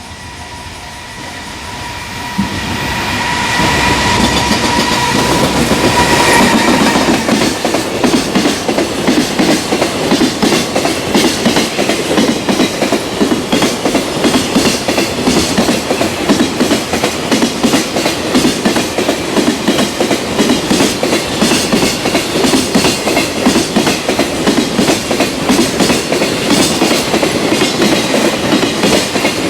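A Japanese freight train passing close by. The electric locomotive approaches with a steady motor whine that grows louder and stops after about six seconds as it goes by, then the long string of freight wagons follows with a continuous rhythmic clatter of wheels over the rail joints.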